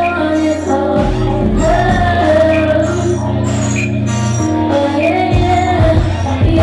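Live music: a woman singing a melodic line over held bass notes.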